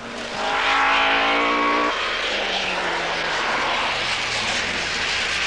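Ford Escort Mk2 rally car at speed on a stage, its engine revving high with the note climbing, then dropping to a lower note about two seconds in and running on, falling slowly.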